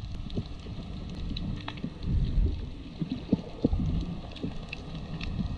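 Underwater ambience from a submerged camera: a steady low rumble of moving water with irregular dull knocks, and scattered short, sharp clicks.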